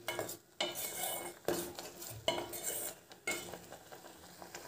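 Steel spoon stirring vermicelli in milk, scraping and clinking against the sides of a stainless steel pot in about five separate strokes.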